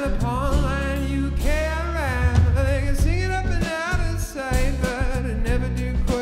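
Funk band playing live: a man singing over electric guitar, saxophone and drums.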